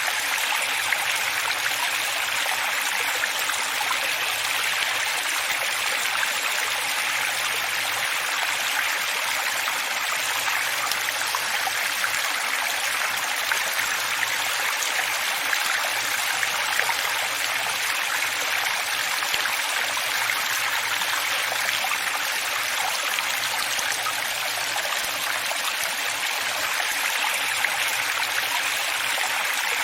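Running water flowing steadily: an even, unbroken splashing hiss with little low rumble.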